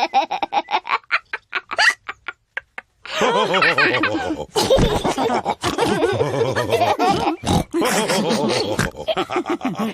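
A run of short, quick clicks over the first few seconds, then from about three seconds in cartoon pig characters laughing with snorts.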